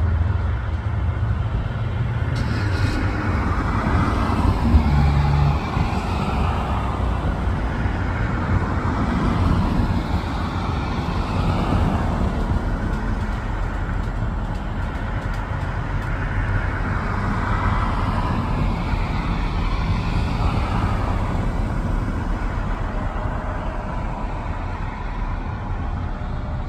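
Steady low rumbling background noise that swells and fades slowly over several seconds, with a brief low bump about five seconds in.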